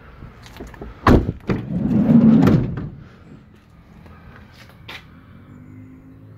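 Vauxhall Combo van doors being worked. There is a loud door thud about a second in, then the sliding side door runs along its track for about a second and a half.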